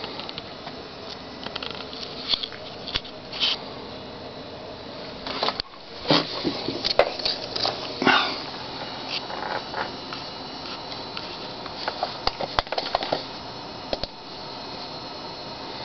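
Handheld camera handling noise: irregular rustles and small clicks over a steady hiss, busiest in the middle.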